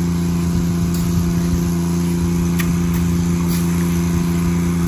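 An engine running steadily at one pitch, with a few faint scrapes of a shovel turning fertilizer granules over a tarp.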